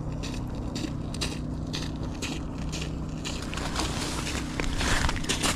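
Footsteps crunching over snow, about two steps a second, growing louder over the last couple of seconds, with a steady low hum beneath.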